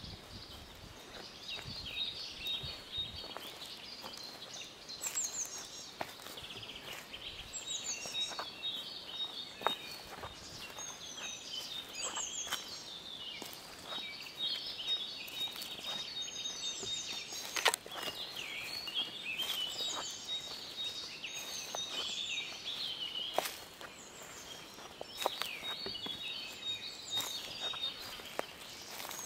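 Spring woodland birdsong: several birds singing at once in a continuous chorus of high chirps and trills, broken by scattered sharp clicks, the loudest a little past the middle.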